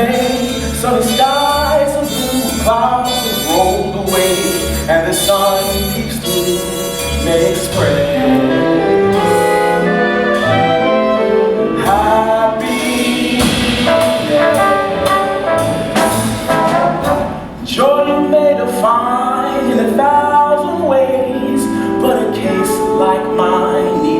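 Jazz band playing, with trumpets, trombones and saxophones leading over a steady beat; the music drops back briefly about three-quarters of the way through.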